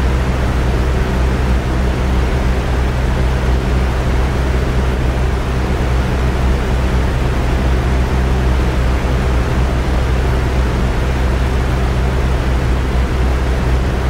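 A steady, unbroken noise track: a loud even hiss with a heavy low rumble and a faint low hum underneath.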